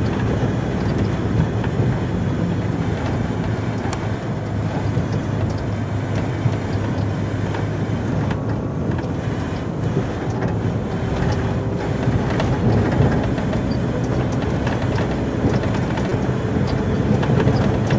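Volvo FH 440 truck's 13-litre six-cylinder diesel engine droning steadily under way, heard from inside the cab, with the rumble of the truck running over a snowy road.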